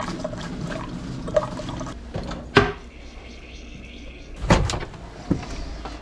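Keurig single-serve coffee maker dispensing hot water into a stainless steel tumbler, a steady pouring, filling sound. Several sharp knocks cut through it, the loudest about two and a half and four and a half seconds in.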